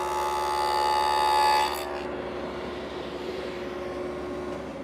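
A power tool cutting a dado across 3/4-inch pre-finished plywood: a loud cutting whine that ends abruptly about two seconds in as the cut finishes. The machine then keeps running more quietly.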